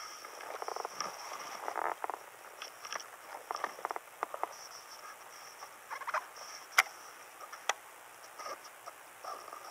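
Irregular light splashes, drips and handling noises as a just-caught bass is held and lowered to the water from a float tube, with a sharp click about seven seconds in.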